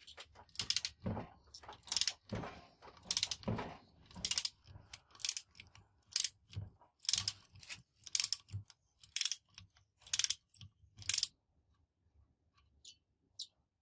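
Ratchet wrench clicking in quick back-and-forth strokes, about two a second, as it backs bolts out of a rusty truck air compressor housing. The strokes stop about eleven seconds in, with a few faint clicks near the end.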